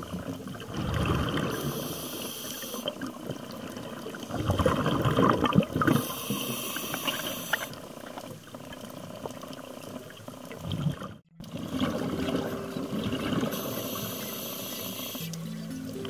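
Scuba regulator breathing, heard underwater: three hissing inhalations several seconds apart, with bubbling exhalations between them.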